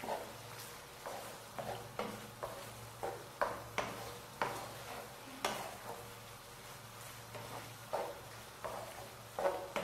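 Wooden spoon stirring penne through a thick cream sauce in a nonstick frying pan: irregular short strokes, about two a second with a short lull after about six seconds, over a low steady hum.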